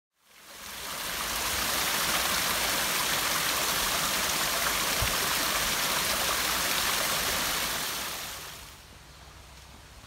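Small artificial waterfall splashing steadily over rocks. The sound fades in at the start and drops away sharply near the end.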